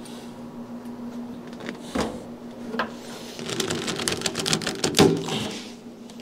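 Flexible corrugated plastic dust hose being twisted and pulled off the inlet of a Wen dust collector's blower housing: a couple of knocks, then a rapid run of crinkling clicks from the ribbed hose flexing, with a sharper knock as it comes free. A low steady hum sits underneath.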